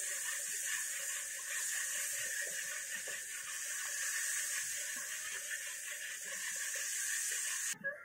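Besan batter sizzling steadily in a wok of hot oil as it is pushed through a perforated plate and fried into jhuri bhaja (gram-flour sev) strands. The sizzle cuts off suddenly near the end.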